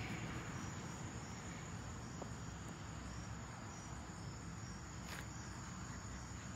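Crickets or similar night insects chirring steadily: a thin, high, continuous tone with faint repeated chirps. A faint click comes about five seconds in.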